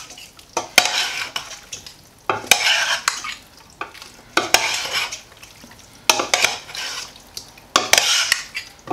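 Dressed leafy salad being tossed with a metal spoon in a stainless-steel pot: about five rustling, wet strokes with short pauses between them, the spoon clicking against the side of the pot.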